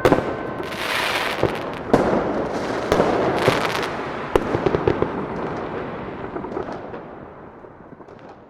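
Fireworks exploding: several sharp bangs with dense crackling between them, fading steadily away toward the end. The last stroke of a clock bell striking midnight rings out and dies in the first second.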